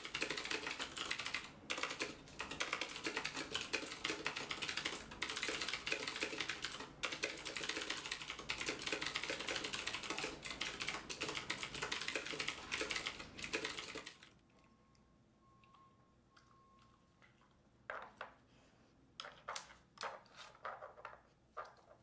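Rapid, continuous typing on a Filco mechanical keyboard, with a few short pauses. It stops about fourteen seconds in, followed by a few scattered clicks.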